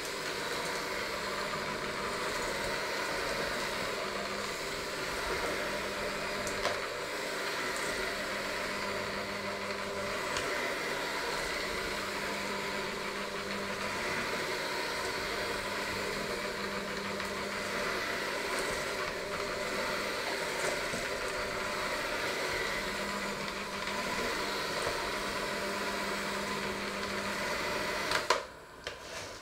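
Electric hand mixer with dough hooks running steadily while working a crumbly dough in a stainless steel bowl, with a few short knocks. Near the end, a brief clatter, and the motor cuts off.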